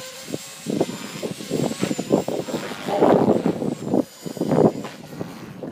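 Strong gusty wind buffeting the microphone in uneven rumbling blasts, loudest about three and four and a half seconds in. Under it, a faint steady high whine from the Blade 450 X electric RC helicopter's motor and rotors.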